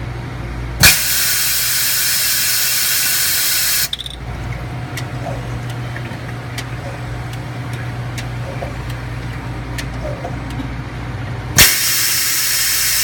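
Container washing machine running with a steady hum, with two loud hissing jet blasts, each starting with a sharp pop: one about a second in lasting about three seconds, and another near the end.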